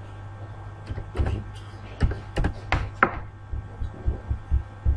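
Computer keyboard being typed on: scattered short key clicks and thuds at an uneven pace, over a steady low electrical hum.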